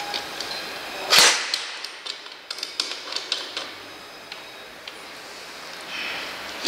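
Steel square tube of an ab-bench seat being fitted into the frame's bracket: one loud metal clack a little over a second in, then a run of light metallic clicks and rattles as the parts settle and the locking knob is handled.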